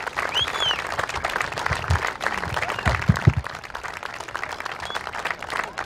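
Crowd applauding, with a short high whistle that rises and falls about half a second in.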